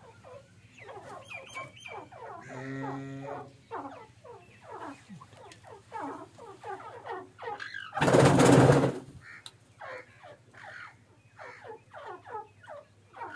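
Young male white francolins giving repeated short, downward-sliding calls, several a second. A longer, lower held sound comes about two and a half seconds in, and a loud burst of noise lasting about a second comes about eight seconds in.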